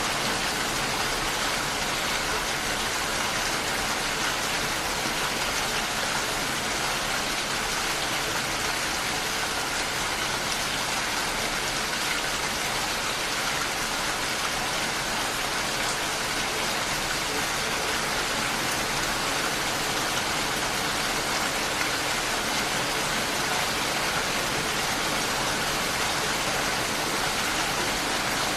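Steady rain falling, an even hiss of drops with no breaks or changes in level.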